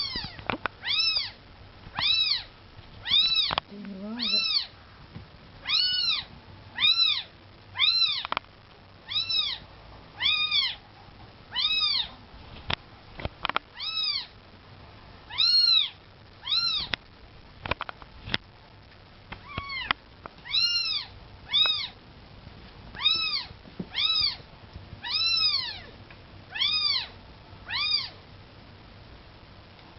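A young kitten mewing over and over, short high calls that rise and fall, about one a second. A few sharp clicks come between the calls.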